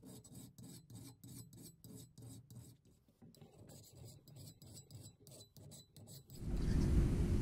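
Hand file rasping across the steel edge of a double-bit axe head held in a vise, in regular strokes about three a second, reworking the edge to take out dings and nicks. Near the end a much louder steady noise takes over.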